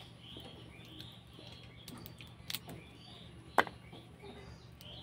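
Cooked crab shell cracking as it is broken apart by hand, with a few sharp cracks and the loudest about three and a half seconds in. Small birds chirp in the background through the first half.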